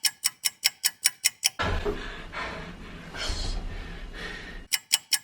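Rapid, evenly spaced ticking, about five clicks a second, stops about a second and a half in. A rushing noise with a low rumble follows for about three seconds, then the ticking starts again near the end.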